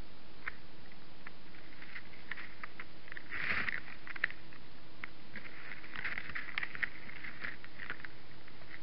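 Scattered soft crackles and scuffs of deer stepping and feeding on snow-crusted ground, with a louder scuffle about three and a half seconds in and a cluster of crackles around six to seven seconds. Underneath is the steady hiss and faint hum of a trail camera's microphone.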